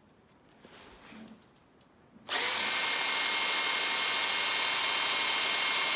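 Power drill driving a Wolfcraft drill-powered transfer pump: it starts about two seconds in, spins up with a brief rising whine and runs steadily at full speed. The owner is not convinced the pump is actually moving the diesel.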